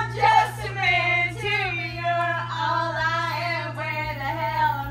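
Female and child voices singing, with long held notes that waver in pitch, over a steady low hum.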